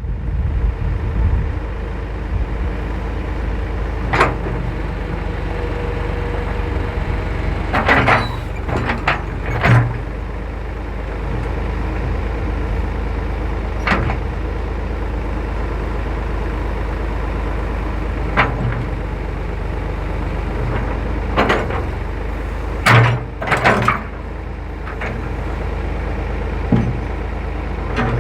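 Tractor backhoe engine running steadily while digging, with sharp clanks every few seconds from the bucket and boom working.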